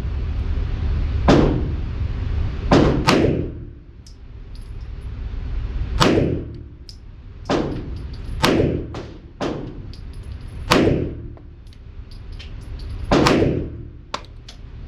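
9mm Smith & Wesson M&P Shield Plus Performance Center pistol firing a slow string of single shots, one to three seconds apart, each a sharp crack with a short ringing tail.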